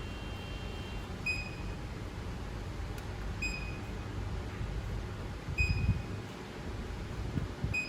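Short electronic beeps from a KVM switch as its front-panel buttons switch between computers, one about every two seconds, four in all, over a steady low hum.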